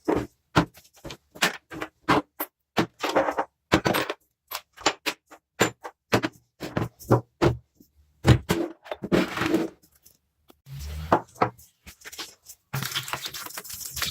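A run of short metal workshop sounds on a small rusty vise being taken apart and cleaned: sharp knocks and clinks mixed with brief scraping strokes. Near the end a steady grinding or brushing noise starts.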